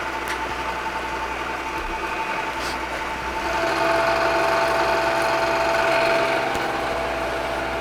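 Milling machine running at about 1200 RPM, taking a light clean-up pass with a two-inch face-milling head across hardened 4140 steel (about Rockwell C 30). About halfway through it gets louder and a new steady whine joins in as the cutter works into the steel.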